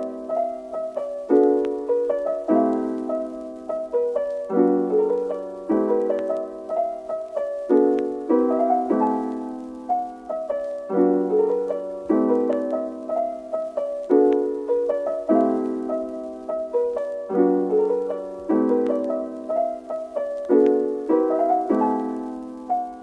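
Background music: a slow, soft piano-style keyboard piece of struck chords, each fading away, one every second or so, with no drums.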